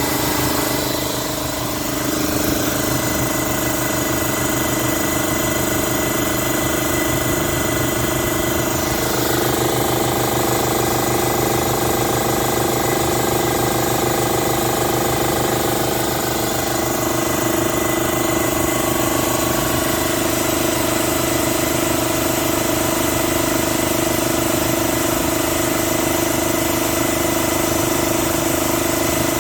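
Air compressor and the portable generator powering it running steadily, the compressor pumping up its tank pressure. The machine's tone shifts slightly twice, about a third of the way in and again past the middle.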